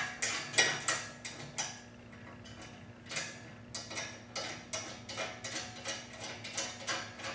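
Irregular metallic clicks and taps, a few a second, as bolts and hand tools are worked on the steel frame of a motorcycle stand while an axle assembly is fastened to it. The clicks pause briefly about two seconds in, then resume.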